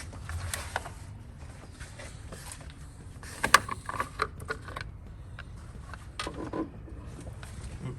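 Scattered light clicks, knocks and creaks of hand work on parts in a car's engine bay. The sharpest knock comes about three and a half seconds in, and a few more follow around six seconds in.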